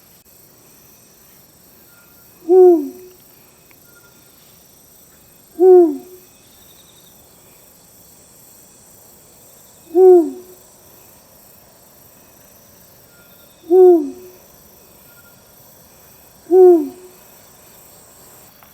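Eurasian eagle owl hooting: five deep, short hoots, each a single note dropping in pitch, repeated every three to four seconds.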